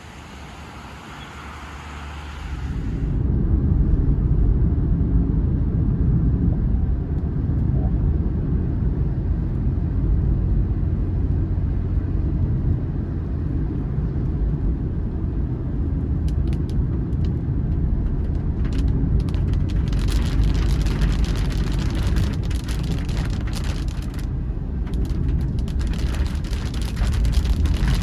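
A sudden local downpour (katabui) setting in: scattered drops hit from about sixteen seconds in and turn into steady rain from about twenty seconds. Under it is a loud low rumble that starts about three seconds in and holds steady.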